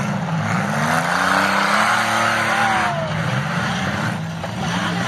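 Demolition derby cars' engines revving and rising and falling in pitch as they maneuver, with a rush of noise from spinning tires that swells about a second in and eases off about three seconds in.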